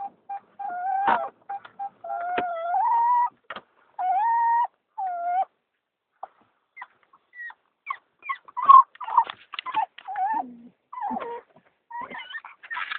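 A dog whining and crying in long, high, wavering cries, then a brief pause and a run of short, broken yelps and squeaks. It is her excited crying as the car slows down on arrival.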